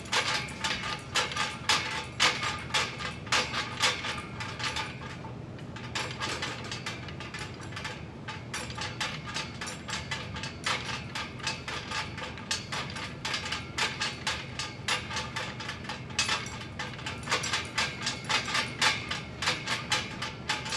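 Gym cable machine in use for overhead triceps extensions: the weight-stack plates clink and the cable and pulleys click over and over with each rep, over a steady low hum.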